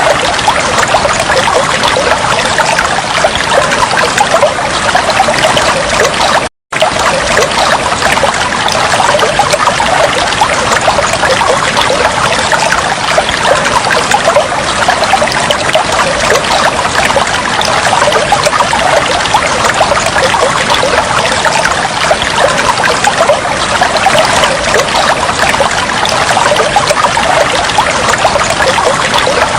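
Water trickling and flowing steadily, with a brief total dropout about six and a half seconds in.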